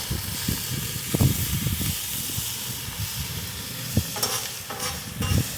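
Thin-sliced steak, onions and bell peppers sizzling as they fry in oil and Worcestershire sauce on a hot cooking surface, with a few short knocks, about a second in and about four seconds in.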